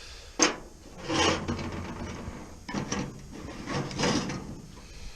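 Sheet steel scraping and rubbing against metal in three or four strokes, with a sharp click about half a second in, as a freshly bent steel repair piece is handled and worked.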